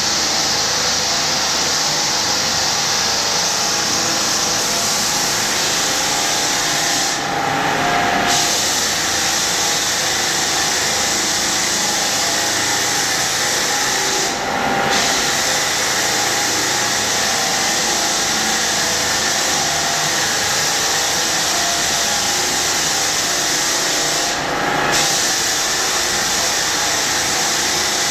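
Hardwood floor sander with a dust-extraction vacuum running steadily, the sound dipping briefly three times.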